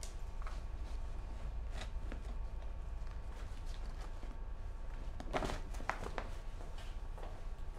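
Room tone: a steady low hum with a few scattered light knocks and rustles, the loudest cluster about five and a half seconds in.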